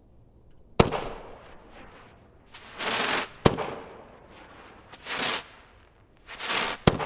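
Stealth Fireworks 'Terminator' multishot cake firing: three sharp, loud bangs about three seconds apart. Between the bangs come three hissing rushes of about half a second each from its spinners and tourbillions.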